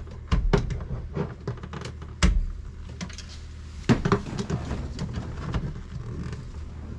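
Irregular clicks and knocks of plastic and metal as a VW T5's steering-wheel airbag is released and handled, over a steady low hum. The loudest knocks come about two and four seconds in.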